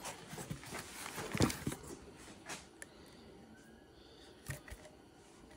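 Packaging being handled as a heated-grip kit box is opened: a few light knocks and clicks with soft rustling between them, the loudest about a second and a half in.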